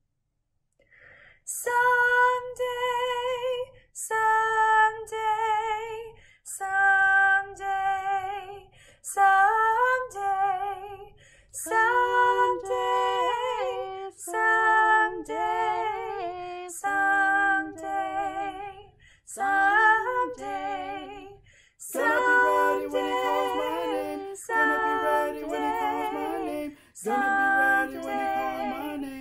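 Unaccompanied choir voices singing "Someday, someday" in repeated short phrases. A woman's voice starts alone. A second woman's voice joins in harmony partway through, and later a man's voice adds a lower part.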